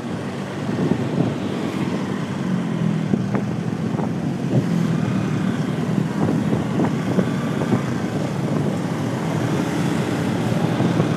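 Motorcycle riding along a road in traffic: steady low engine hum mixed with wind and road noise.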